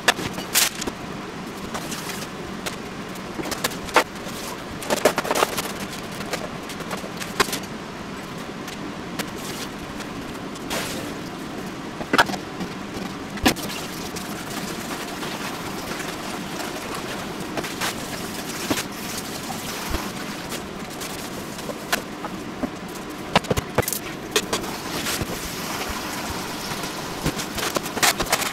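Kitchen handling noise: scattered sharp knocks and clatters of trays and containers being moved and set down on a counter, over a steady background hum.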